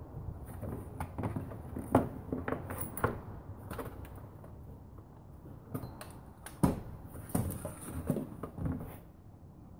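Irregular knocks, clicks and rattles from handling a handheld router and a plastic base plate on a wooden workbench. Two knocks stand out, one about two seconds in and one just past the middle.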